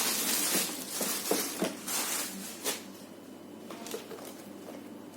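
Rustling and handling of a parcel's packaging as it is opened, with several short scrapes and knocks over the first few seconds, then quiet handling.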